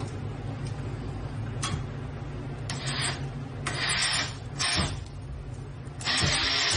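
Cordless drill driving mounting screws into a wooden door frame header in a few short bursts, the longest and loudest near the end.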